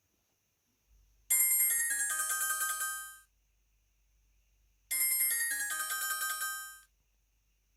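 Ringtone of a 2009 Alcatel-made Miss Sixty mobile phone: a short, bright chiming melody played twice, each time about two seconds long, with a pause between.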